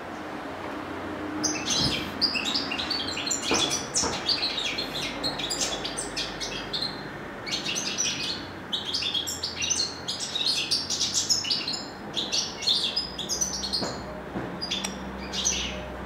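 A canary singing: fast, rolling trills and chirps in long phrases with short pauses, starting about a second in.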